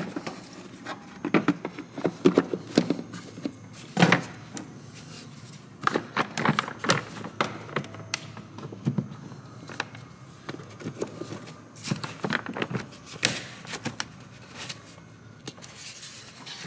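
Hard plastic air filter housing and rubber intake duct being handled and seated: scattered clicks, knocks and scraping of plastic parts, with a sharper knock about four seconds in.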